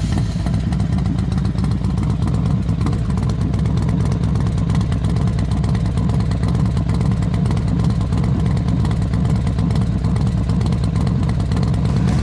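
Motorcycle engine sound running at a steady low rumble, without revving up or down.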